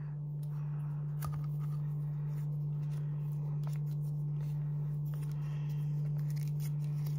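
A foil sachet being squeezed out into a plastic cup, its contents pressed through a plastic squeezer clip, giving faint crinkles and small clicks. A steady low hum runs underneath throughout.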